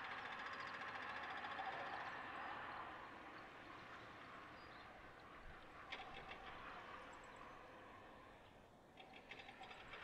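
Faint outdoor ambience: a steady hiss that fades after about three seconds, with two short runs of rapid ticking, about six seconds in and again near the end.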